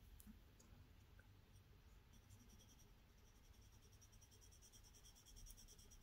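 Faint scratching of a graphite pencil shading on textured drawing paper, in rapid, even back-and-forth strokes that are clearest from about two seconds in.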